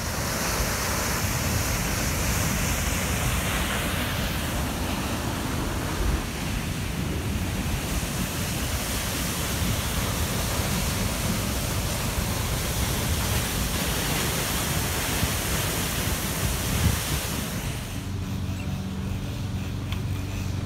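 Sea surf washing on a beach, a steady rushing hiss, with wind buffeting the microphone. Near the end the surf hiss falls away and a low steady hum takes over.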